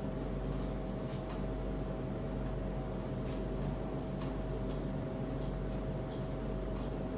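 A steady mechanical hum with one constant tone, and a scattered series of faint light clicks and taps, typical of hose fittings and tools being handled.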